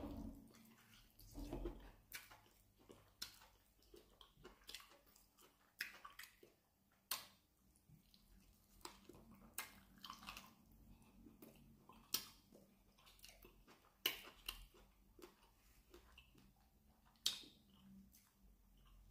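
Close-up mouth sounds of a person eating meat off a bone by hand: chewing, sucking and lip-smacking, heard as irregular clicks and smacks, a few sharper than the rest.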